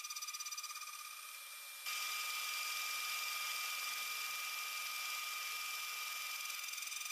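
CNC router spindle whining steadily while an end mill cuts through aluminium plate in a trochoidal path. The cutting noise pulses quickly at first, then about two seconds in turns abruptly louder and steadier.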